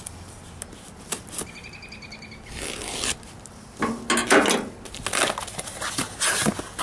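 Rustling, scraping and crinkling of cardboard boxes and paper packing material being handled, with scattered clicks, louder from about halfway through.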